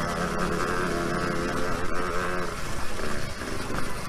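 Dirt bike being ridden along a trail: the motor's pitch wavers up and down with the throttle, over a steady rushing and rattling noise.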